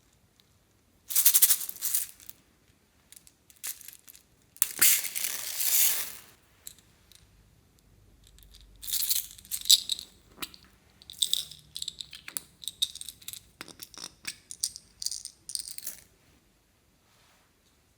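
Irregular bursts of rattling and crackling as slime is handled with small mix-ins stirred through it: two longer bursts in the first six seconds, then a run of quick crackles from about the middle to near the end.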